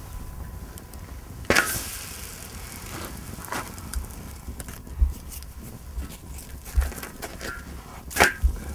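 Wood fire crackling under a domed iron saj griddle, with a few sharp cracks, the loudest about a second and a half in and another near the end.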